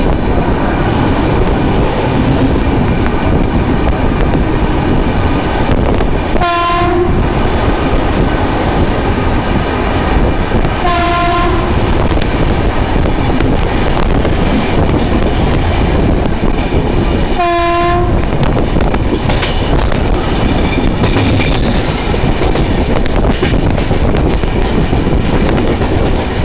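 Express train running steadily at speed, with the rumble and clatter of wheels on the rails, heard from inside a moving coach. A train horn sounds three short blasts, at roughly 6 and 11 seconds, then again around 17 seconds.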